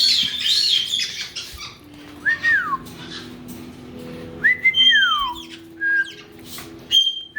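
Caique parrots whistling: a wavering high whistle at the start, then two whistles that each hold a note and slide down, and short high notes near the end.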